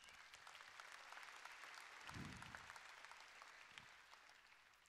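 Faint applause from a large audience, swelling over the first couple of seconds and dying away near the end.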